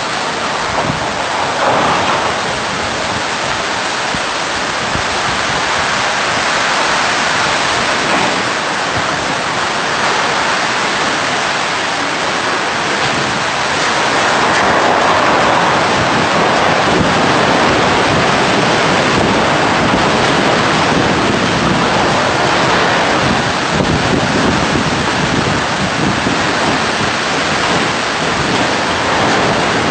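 Heavy downpour: loud, dense, steady rain, swelling a little louder about halfway through.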